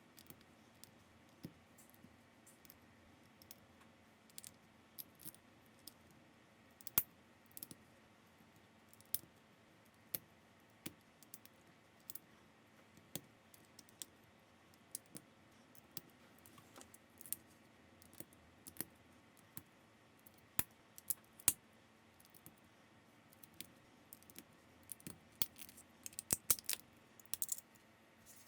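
Small plastic building bricks clicking and tapping as they are handled and pressed together, in scattered sharp clicks with a quick flurry near the end.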